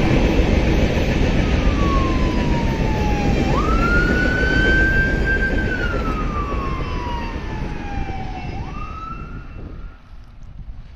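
Police car siren wailing, its pitch falling slowly and then jumping back up, twice. Under it a loud rumble from the freight train that has just passed fades away near the end.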